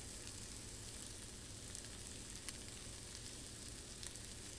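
Shrimp and asparagus sizzling steadily in butter in a frying pan during a stir-fry, with a few faint crackles.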